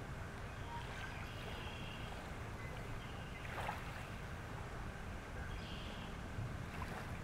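Small waves lapping at the water's edge over a low steady rumble, with a brief splash-like swish about three and a half seconds in. A few faint, short high chirps come and go.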